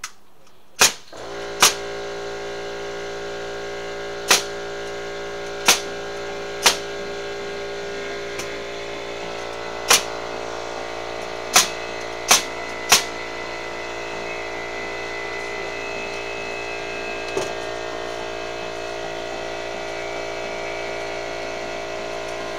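About nine sharp bangs, irregularly spaced over the first thirteen seconds, over a steady motor hum that starts about a second in and runs on unchanged: deck-building work with striking tools and a running machine.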